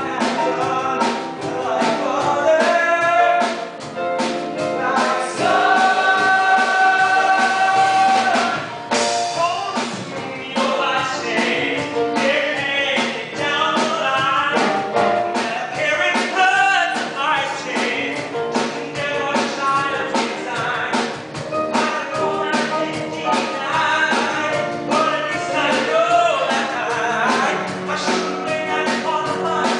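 Male voices singing a musical-theatre number over instrumental accompaniment, with some long held notes partway through.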